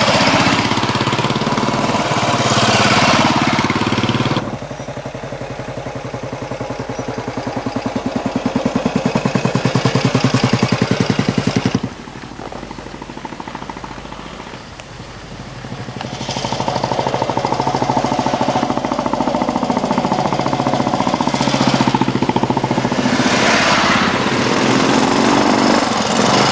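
Royal Enfield Bullet motorcycles' single-cylinder engines running as the bikes ride past one after another, a rapid even beat with pitch rising and falling as they pass. The level changes abruptly twice, a few seconds in and near the middle.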